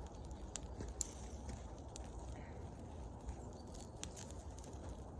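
Twigs and sticks being handled for a campfire: scattered sharp clicks and snaps, the loudest about one second in and about four seconds in, over a steady low background noise.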